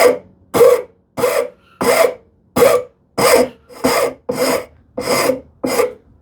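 Hand rasp cutting a chamfer on the edge of a wooden frame leg: about ten even rasping strokes, roughly one and a half a second.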